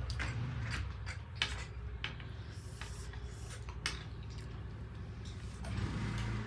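Eating at a meal: scattered light clicks and clinks of plates and utensils, over a steady low hum.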